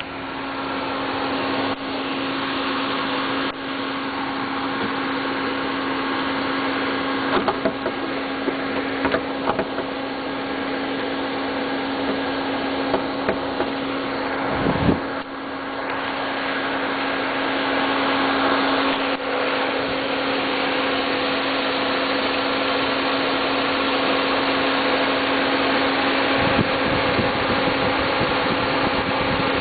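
Volkswagen Passat engine idling with a steady hum, with a few short knocks partway through.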